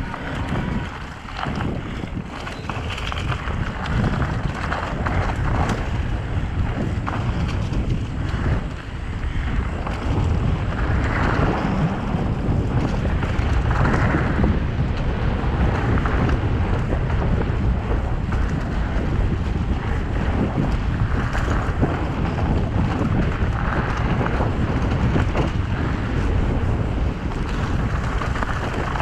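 Wind buffeting the camera microphone, with mountain bike tyres rumbling over a dirt singletrack on a downhill run. It gets louder over the first few seconds, then holds steady.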